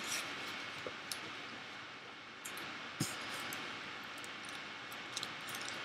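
Steady hiss with faint rustling and light clicks from hands handling foil-wrapped fingertips and cotton balls, with one sharper tick about three seconds in.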